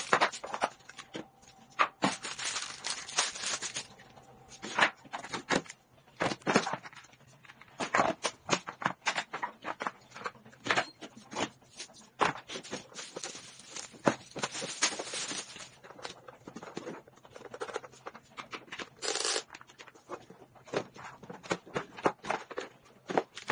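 Plastic toy parts and packaging being handled: rustling and crinkling of wrapping with many sharp plastic clicks and knocks.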